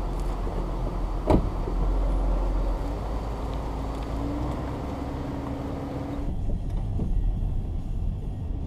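A motor vehicle running with a steady low rumble, with one sharp click about a second in.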